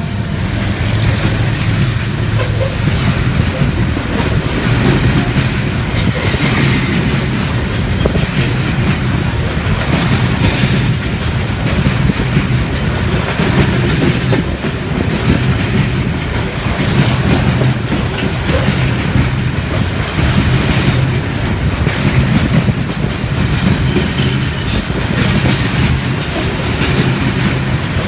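Freight train wagons rolling past at close range: a steady, loud rumble with the wheels clacking over the rail joints.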